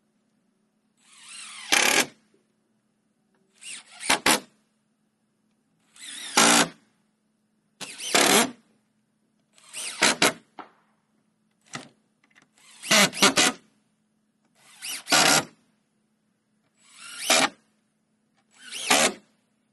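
Cordless drill driving screws into old barn-wood boards: about ten short runs, roughly one every two seconds, each building up and ending loudest as the screw goes home.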